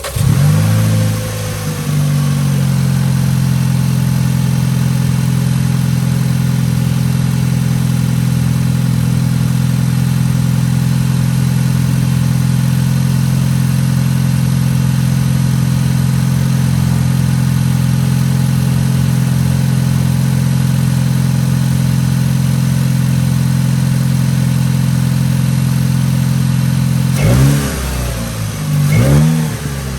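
A 2017 Volkswagen Passat R-Line engine with a straight-piped exhaust and an AEM intake, starting up. It catches and flares at the start, settles into a steady idle after about two seconds, and near the end is revved twice in quick blips.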